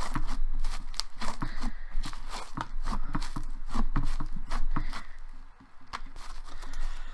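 Thick slime being squeezed and kneaded by hand, giving a quick, irregular run of sticky clicks and small pops that pauses briefly about five and a half seconds in.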